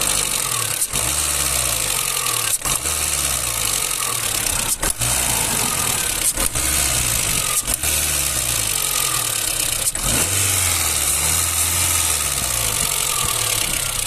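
Hot Renault Clio 2 petrol engine revved repeatedly with the accelerator, the engine note rising and falling over and over. The owner says the engine feels choked (hesitant) when accelerating hot, and he is unsure whether the combustion is wrong.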